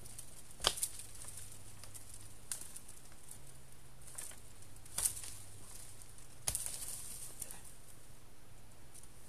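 Twigs and cut hazel branches snapping and rustling as they are pulled and worked loose by hand from a coppice stool. A few sharp cracks, the loudest about a second in, others near the middle and about two-thirds through, with quieter rustling between.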